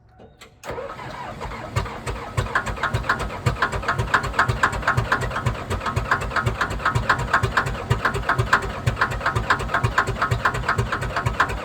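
Komatsu D57S1 track loader's diesel engine being cranked by the starter. It turns over in a steady, even rhythm of pulses but does not catch: a slow cold start on a chilly morning.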